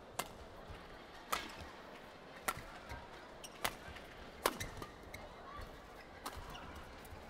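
Badminton rally: racquets striking the shuttlecock in a series of sharp hits, about one a second, over a faint, quiet arena background.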